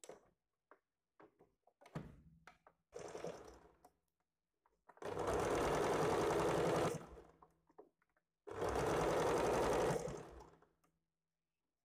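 Sewing machine stitching: a few short spurts, then two steady runs of about two seconds each with pauses between, topstitching a folded-in blouse neckline.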